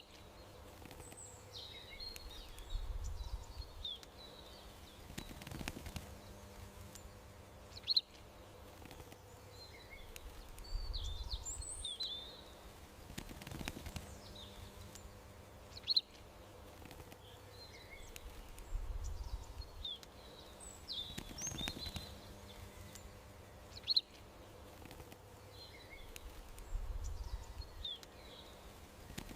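Small songbirds chirping and twittering in short, high calls over a faint steady hum, with a short low rumble now and then. The whole pattern repeats every eight seconds, like a looped garden-birdsong track.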